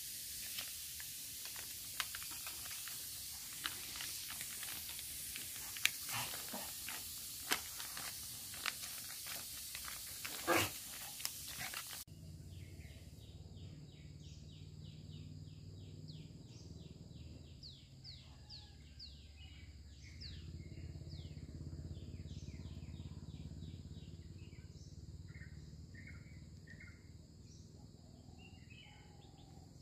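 Steady hiss with scattered sharp clicks, a small dog's claws on a polished stone floor. About halfway through it changes to birds chirping, with runs of quick repeated notes, over a low outdoor rumble.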